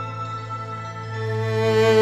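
Slow background music of sustained string notes over a held low note, growing louder in the second half.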